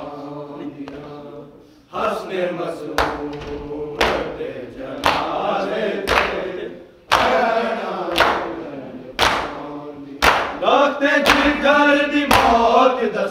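Voices chanting a noha, a Shia lamentation, together. From about two seconds in, a sharp thump about once a second keeps time with the chant.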